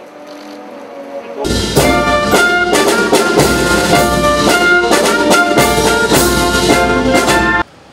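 Ceremonial brass band music with drum and cymbal hits. It starts about a second and a half in and cuts off abruptly near the end.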